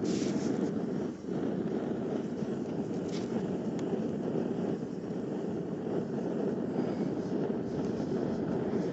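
A forge running with a steady rushing noise, dipping briefly about a second in.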